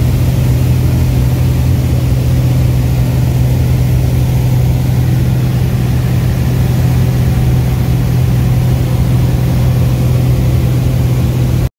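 Single-engine Cessna's piston engine and propeller droning steadily in flight, heard from inside the cabin as a loud, constant low hum. It cuts off suddenly near the end.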